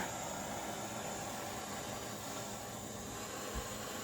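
Steady blowing hiss of the heater used to heat a Sheridan Blue Streak air rifle's breech for soldering, with one faint knock near the end.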